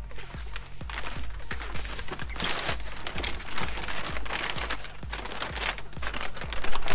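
Background music with a steady beat, with crinkling and rustling of packaging over it.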